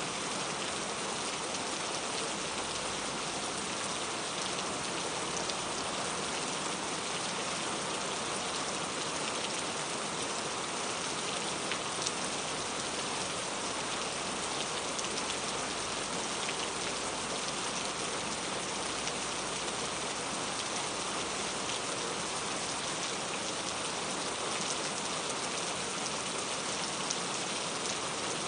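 Steady rain falling and pattering on surfaces, an even hiss of dense drops with a few sharper drop ticks.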